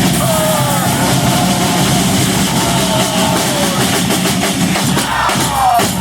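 Brass band playing a fast, driving tune live: horns in sliding phrases that fall in pitch, a steady bass line and drums keeping the beat. About five and a half seconds in, a horn makes a long downward slide.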